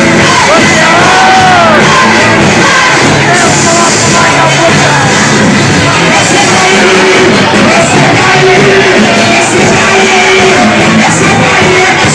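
Loud church worship music filling a large hall, with many voices of a congregation shouting and singing over it in fervent prayer.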